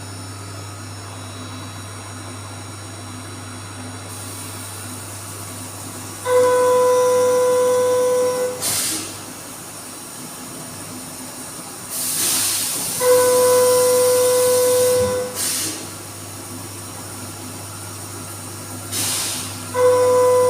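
Doosan 4-axis CNC milling machine running its program: a steady hum and hiss, with three loud, steady, pitched whines of about two seconds each, about six seconds apart. Short hissing bursts come between them.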